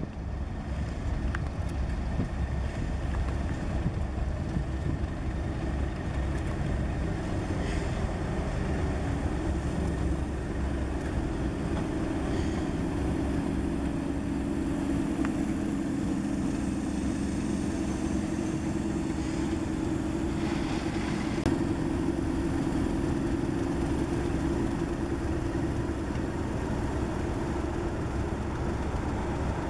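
Class 37 diesel locomotive's English Electric V12 engine running as the locomotive rolls slowly past at close range, a steady low engine note that grows a little fuller about halfway through.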